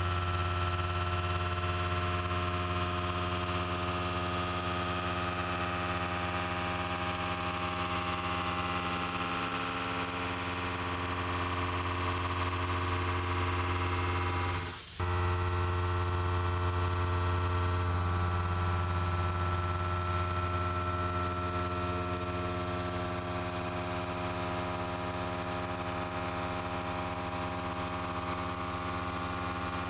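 Kennametal Mill 4-15 shell mill on a DMG MORI DMU50 milling 4140 steel: a steady, unchanging whine of many stacked pitches with hiss above it. There is one short break about halfway through.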